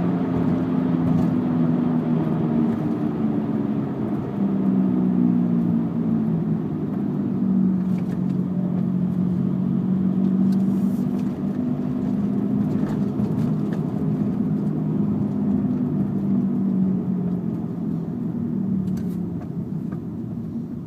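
Volkswagen Jetta driving with a steady droning hum over road noise, which the owner takes for a bad rear passenger-side wheel bearing. The hum weakens and fades near the end.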